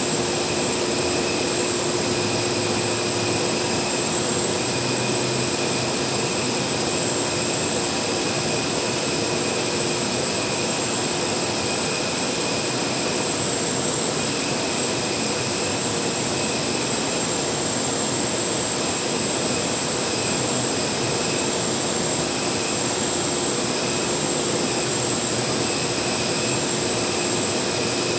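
Jet engine running steadily: a constant rush of noise with high-pitched whining tones held at one pitch, never rising or falling.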